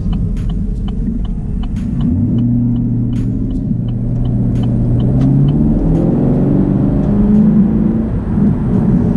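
Chevrolet Camaro's engine and road noise heard inside the cabin as the car drives off. The engine note settles about two seconds in, then rises in pitch around the middle as the car accelerates. A light, regular ticking runs through the first few seconds.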